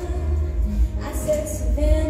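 Show choir singing with a live backing band, held sung notes over strong bass.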